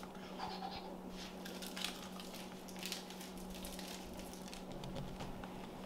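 Faint crinkling and rustling of small plastic candy wrappers being handled, in scattered short bits, over a steady low hum.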